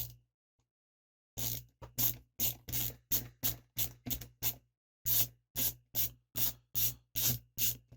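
Socket ratchet wrench ratcheting in quick repeated strokes, about two to three a second, in two runs with a short pause between them.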